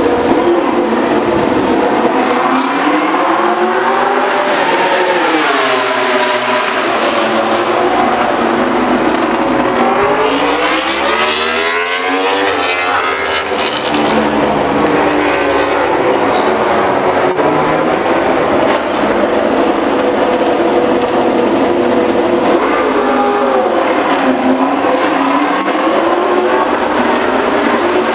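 MotoGP race motorcycle engines running at high revs, a loud continuous scream whose pitch sweeps up and drops several times as the bikes accelerate and shift gears.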